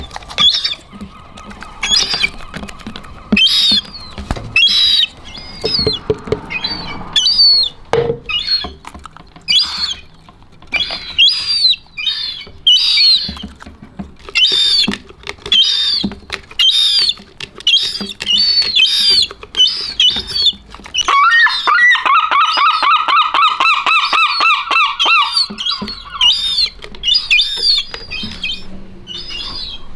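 Seagulls calling: short high squawks every second or so. About two-thirds of the way through comes a run of rapid, evenly repeated calls lasting about five seconds.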